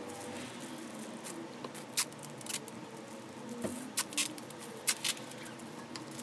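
Clear cellophane wrap crinkling in the hands, with a handful of short, sharp rips as adhesive tape is pulled off a desk tape dispenser and torn on its blade, the sharpest ones in the second half.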